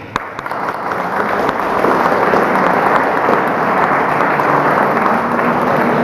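Audience applauding. The clapping builds over the first couple of seconds and then holds steady.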